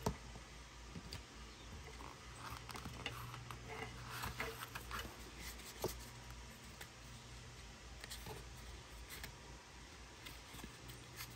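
Hands handling Apple packaging: the cardboard insert and the plastic EarPods case being lifted and turned. It gives light clicks, taps and rustles, busiest a few seconds in, with a sharper click at the start and another just before the middle.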